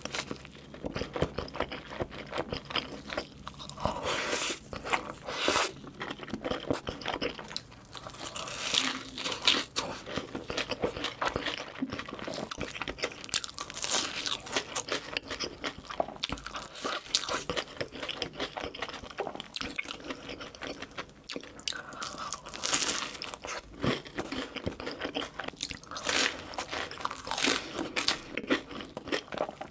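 Close-miked eating of crispy fried food: repeated crunchy bites and chewing, the loudest crunches coming in bursts with softer chewing between them.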